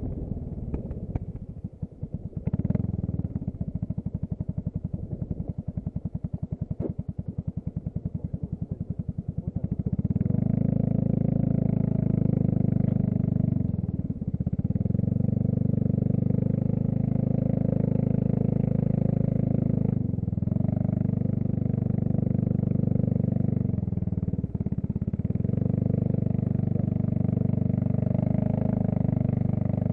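Scooter engine running at low revs with a rapid, even pulsing beat. About ten seconds in it settles into a louder, steady drone as the scooter pulls along, dipping briefly three times.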